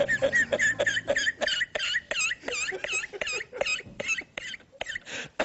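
A man's uncontrolled, high-pitched squealing laughter in rapid short bursts, about five a second, dying down near the end.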